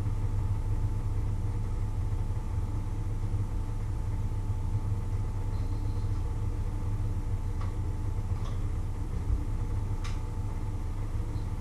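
A steady low mechanical hum, with three faint clicks in the second half.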